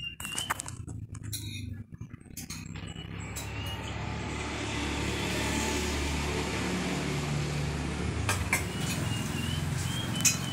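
A motor vehicle engine running close by, growing louder over a few seconds and then holding steady, with a few clicks and short high chirps over it.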